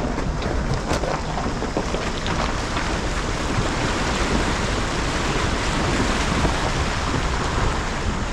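Steady rushing and splashing of river water.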